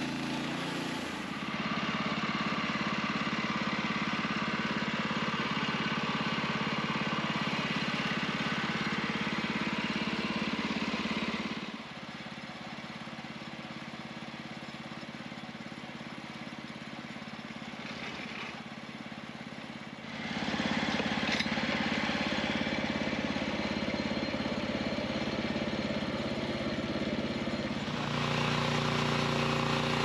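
Kohler gasoline engine of a Norwood LumberMate LM29 portable bandsaw mill running steadily as the mill saws a log. The sound is quieter for about eight seconds in the middle, then comes back up.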